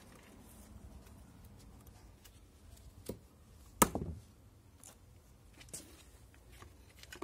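A few scattered sharp clicks and knocks from a folding knife and a piece of wood being handled, with one louder knock about four seconds in.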